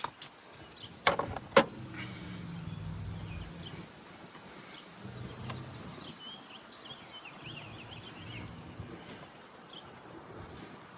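A few sharp metallic clicks in the first two seconds, then a low hum that fades in and out several times, with faint bird chirps around the middle.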